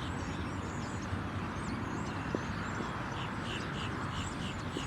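Steady outdoor rumble of wind on the microphone, with small birds chirping in the background and a quick run of about seven short chirps about three seconds in.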